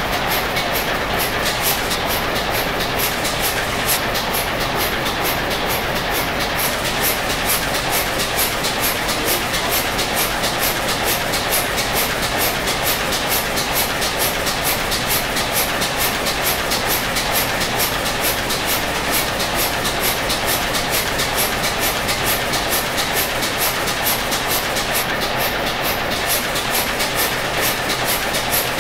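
Old stationary diesel engine turning its big flywheel, giving a loud, steady, rhythmic clatter of about three and a half beats a second.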